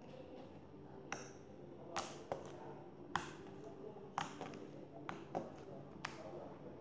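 Pink slime being squeezed and pulled apart by fingers, giving a string of sharp little pops and clicks at irregular intervals, roughly one or two a second.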